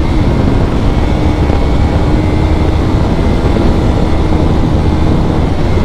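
Bajaj Pulsar NS200's single-cylinder engine running flat out at high revs during a top-speed run, its steady note almost buried under heavy wind rush on the microphone.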